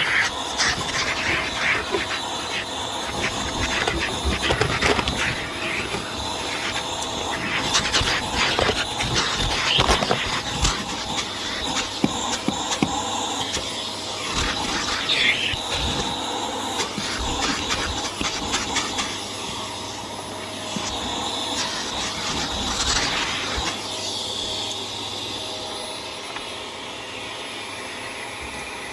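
Vax Air Steerable Max upright vacuum cleaner running steadily, with many short clicks and rattles through the first half or so, typical of debris being sucked up and the cleaner being pushed about.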